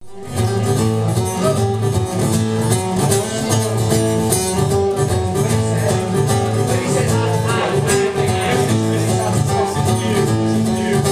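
Live band playing an upbeat rock-and-roll groove: acoustic guitar strummed over a repeating bass line and a steady beat, starting about half a second in.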